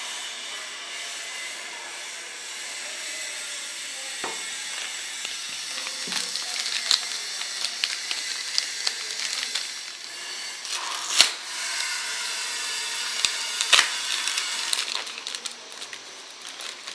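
Clear plastic packaging bags crinkling and rustling in the hands while a TV power cord and parts are unwrapped, with sharp crackles now and then.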